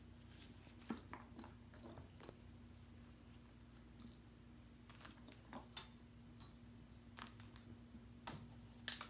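A kitten playing with cat toys on a hardwood floor: light taps and rustles, with two brief high-pitched squeaks about three seconds apart, over a faint steady hum.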